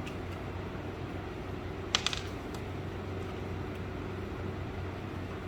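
Steady background hum of a fan or similar machine, with a brief cluster of sharp metallic clicks about two seconds in as small hardware (nuts and screws) is handled.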